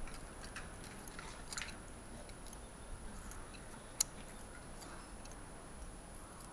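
Faint small clicks and scrapes of a steel feeler gauge being slid into the intake valve clearance of a KTM 250 EXC-F cylinder head, with one sharp click about four seconds in.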